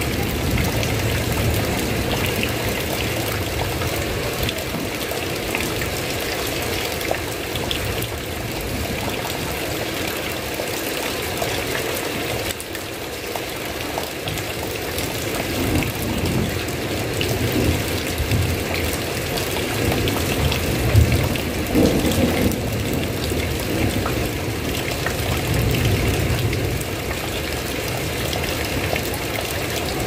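Heavy rain falling steadily, with low rumbles of thunder swelling and fading a few times.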